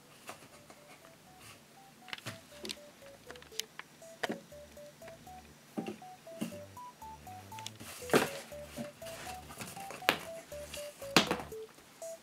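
Light knocks and taps of a cardboard plastic-wrap tube being batted by a kitten on tatami, with two sharper knocks in the second half. Under them runs background music: a simple melody of short, beep-like notes.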